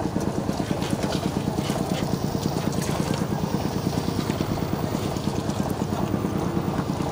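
A small engine running steadily with a fast, even chugging.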